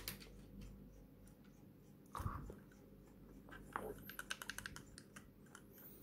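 Keys of a small mechanical macropad with linear red switches being pressed: a quick run of about eight faint clacks about four seconds in. A single soft knock comes a couple of seconds in.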